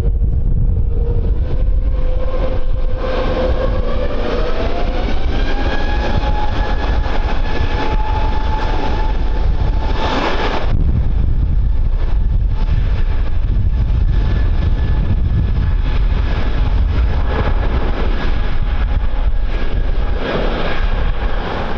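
Jet airliner engines spooling up: a whine rises in pitch a few seconds in, then holds steady under heavy engine rumble, as for takeoff power. Strong wind buffets the microphone, with a loud gust about halfway through.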